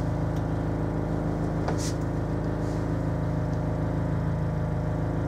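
Steady engine hum at an even speed, with a light tap about two seconds in.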